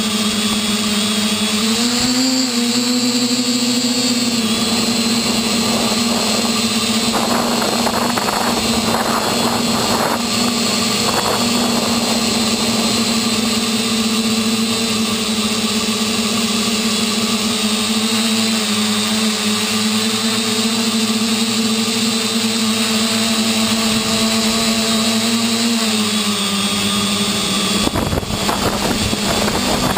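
V-tail quadcopter's electric motors and propellers whining steadily, heard close up from the onboard camera, the pitch rising briefly about two seconds in and shifting again near the end as the throttle changes. Wind buffets the microphone in patches, most strongly near the end.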